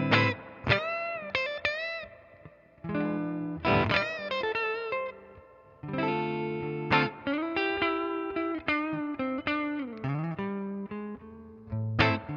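1981 Greco Super Real EGF-1200 electric guitar played on a clean tone through a Fender Princeton blackface amp: single-note lines and chords with several string bends and vibrato.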